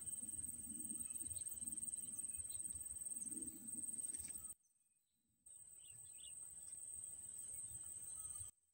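Outdoor riverbank ambience: a steady high-pitched insect trill over a low rumble of wind and background noise. The sound cuts out abruptly about four and a half seconds in for about a second, then again just before the end.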